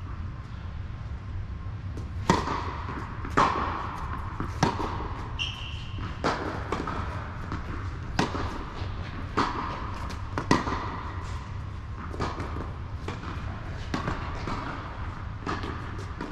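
Tennis rally on an indoor hard court: the ball is struck by the players' Yonex rackets and bounces on the court, sharp pops roughly every one to two seconds, each ringing on in the echo of the large hall.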